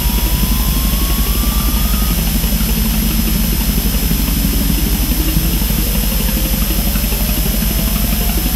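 Experimental electronic music: a dense, rapidly pulsing low drone with steady high tones above it and thin synthesizer tones that glide slowly upward, one rising steeply near the end.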